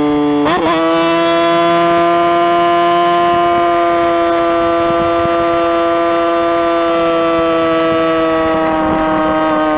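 Motorcycle engine running at high revs, a steady high-pitched whine. About half a second in the pitch wobbles briefly, then creeps slowly upward and eases a little near the end.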